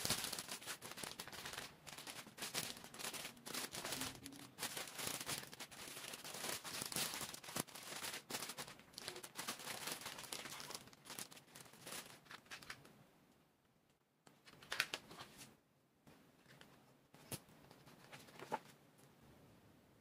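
Model kit packaging and parts being handled as the box is unpacked: crinkling, rustling and light clicks. The handling dies down about twelve seconds in, leaving a few separate sharp clicks.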